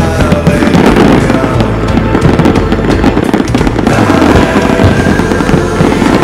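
A dense barrage of aerial fireworks, with shells bursting and crackling in quick succession, over music playing with the show.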